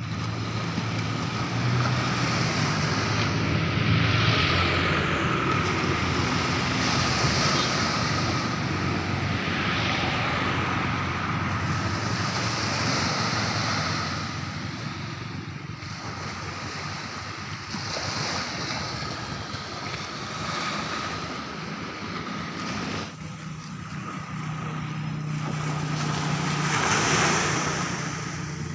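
Small waves breaking and washing up a sandy beach, swelling and fading every few seconds, with a faint low hum underneath.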